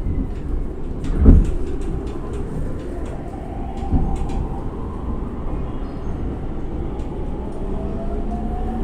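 Running noise inside an E231-500 series electric commuter train, with a motor whine that rises slowly in pitch as the train picks up speed. A heavy thump about a second in and a lighter one about four seconds in come from the wheels passing over track joints or points.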